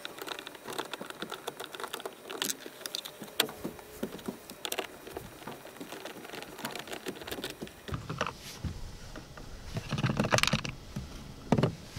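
Rapid run of small, light clicks from a hand tool working on the 7-millimetre bolts behind the plastic door-handle flap of a Honda Ridgeline's interior door panel, followed by a few louder knocks near the end.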